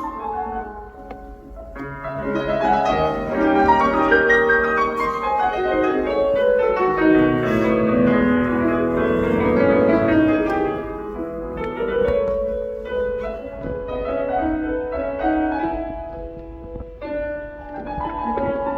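Symphony orchestra playing classical music, swelling into a loud, full passage a couple of seconds in and easing to a softer passage after about eleven seconds.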